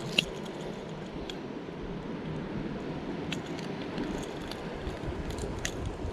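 Fishing pliers clicking against a lure's hooks as they are worked out of a fish's mouth: one sharp click just after the start, then a few lighter clinks, over a steady low rushing background.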